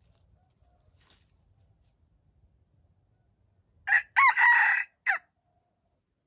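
Wild junglefowl rooster crowing once, about four seconds in: a short, clipped crow in three parts, a quick opening note, a longer middle and a brief final note.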